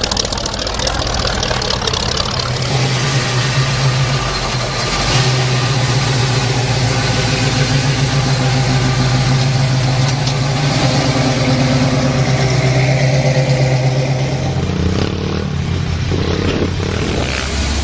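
Classic car engine running close by with a steady low rumble; about fifteen seconds in, its pitch drops and it settles lower.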